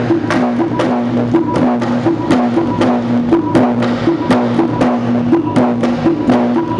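Music for a Dayak creative dance: quick, steady percussion strikes over a repeating two-note figure low in pitch.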